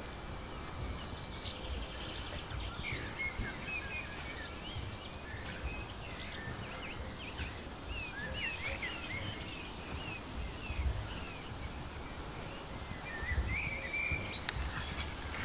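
Small birds chirping and twittering in quick short calls, on and off, busiest in the middle and again near the end, over a steady low rumble.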